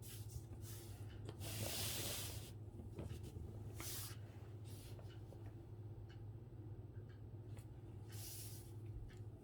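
Calligraphy brush sweeping across paper: a series of soft swishing strokes of differing length, the longest about two seconds in, with light taps between them. A steady low hum runs underneath.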